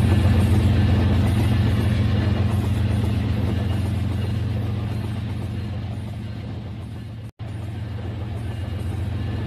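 Battery-powered toy train's motor and wheels running on plastic track: a steady hum with rattle that fades as the train moves away, breaking off briefly about seven seconds in and then resuming more quietly.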